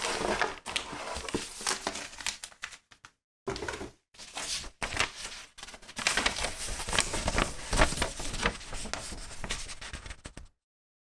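Paper instruction sheets and a plastic bag rustling and crinkling as they are pulled out, unfolded and handled, with a couple of short pauses; the sound cuts off abruptly near the end.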